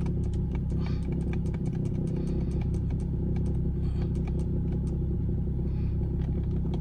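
Car engine idling steadily, with scattered light clicks over it.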